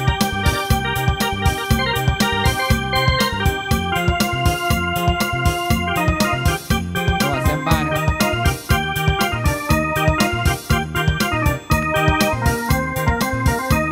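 Casio CTK-4000 home keyboard played with both hands: held melody notes that change every second or so over its built-in accompaniment, a fast, steady drum and bass beat.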